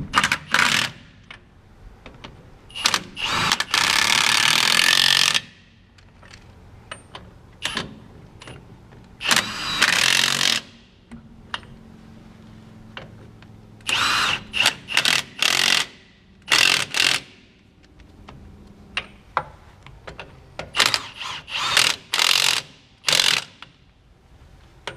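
Milwaukee M18 half-inch cordless impact wrench run in repeated bursts, a few longer runs of about a second and many short blips, tightening truck wheel nuts.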